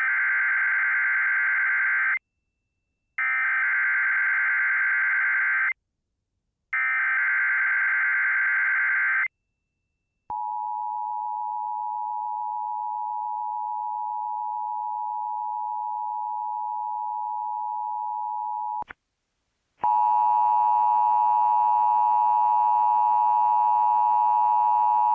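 Start of an Emergency Alert System tropical storm warning relayed by a Sage ENDEC: three bursts of the SAME digital header, each a harsh warbling screech about two and a half seconds long with a short gap between. Then comes the steady two-tone attention signal for about eight seconds. After a brief pause, a second, buzzier steady tone starts and runs on.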